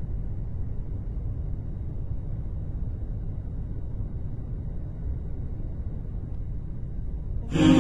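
Steady low rumbling drone, like a vehicle running, with no distinct events. Near the end, a hummed vocal nasheed starts abruptly.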